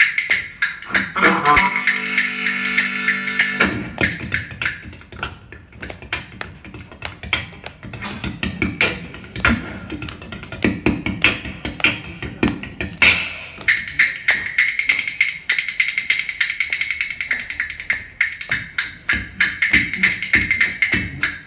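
Harmonica played into a hand-held microphone, with rhythm bones clicking a fast rhythm alongside. There is a held harmonica chord about two seconds in, then a stretch of mostly clicky, rhythmic playing, then sustained high harmonica notes from about two-thirds of the way through.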